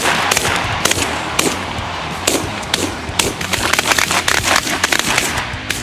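A flock of Canada geese honking in flight, many short calls overlapping densely.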